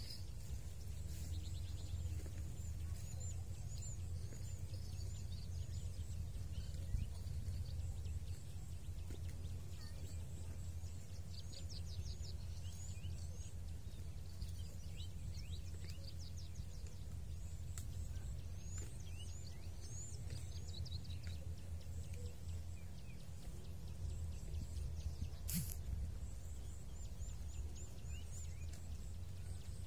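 Small birds calling in short, high chirps and quick down-slurred notes, in scattered runs, over a steady low rumble. A single sharp click comes near the end.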